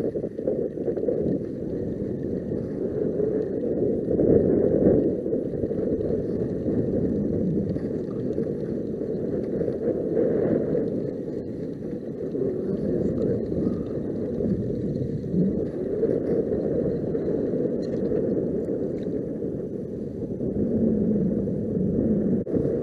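Steady, muffled rumble of wind and choppy sea water lapping around a kayak, swelling and easing every few seconds.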